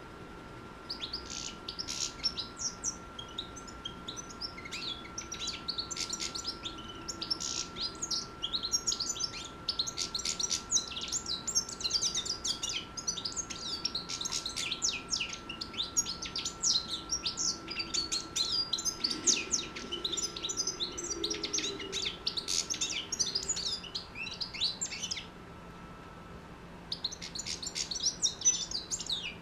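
Six-month-old European goldfinch singing: a long, fast run of twittering, tinkling notes. It breaks off for a couple of seconds near the end, then starts again.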